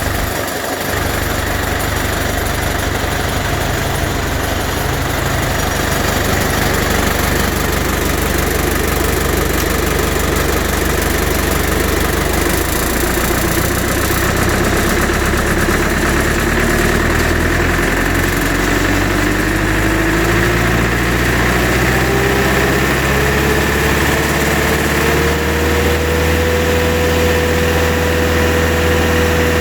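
The Bandit 90XP wood chipper's 85-horsepower Cat four-cylinder turbo diesel running with the chipper clutch disengaged, its speed climbing gradually through the second half and then holding at a higher, steady pitch.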